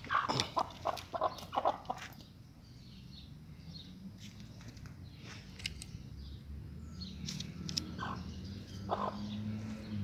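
Chickens making a quick run of short clucking sounds during the first two seconds, then a low steady hum with a few faint chirps.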